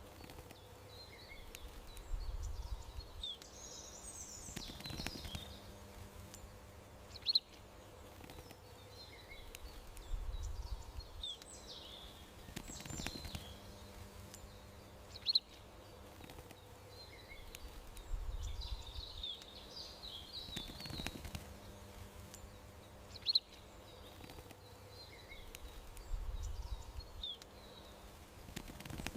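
Small birds chirping and twittering in garden ambience: short sharp chirps and bursts of twittering calls over a low rumble and a faint steady hum. The same few seconds of sound repeat about every eight seconds, as a loop.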